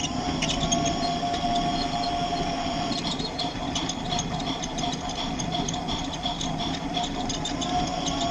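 Mr. Christmas Around the Tree toy train running around its track, heard close up from aboard: a steady motor whine with wheel rumble and scattered clicks over the track.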